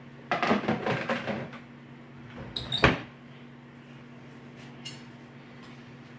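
Kitchen items clattering for about a second, then a short squeak and one sharp bang about three seconds in, like a cabinet door shut, over a steady low hum.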